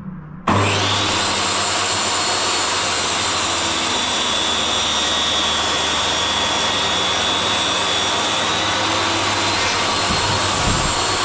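Table saw switched on about half a second in, coming up to speed at once and running with a steady high whine over a low motor hum. The whine sags slightly in pitch midway, as the blade takes load while cutting wedges.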